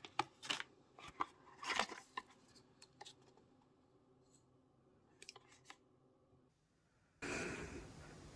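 Paper and cardboard packaging being handled by hand: a string of sharp clicks and rustles in the first three seconds, then only a few faint ones. Near the end a steady hiss of background noise starts abruptly.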